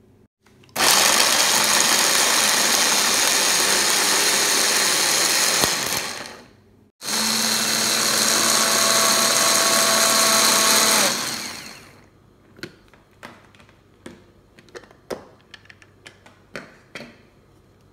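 Electric hand blender with a chopper-bowl attachment running in two bursts of about five seconds each, chopping onion, garlic and ginger into a paste; the motor winds down at the end of each burst. Afterwards come a few light plastic clicks and knocks as the motor unit and lid are taken off the bowl.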